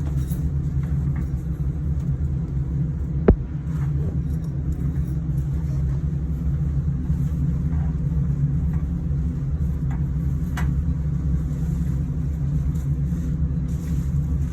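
Steady low rumble of running machinery, with one sharp click about three seconds in.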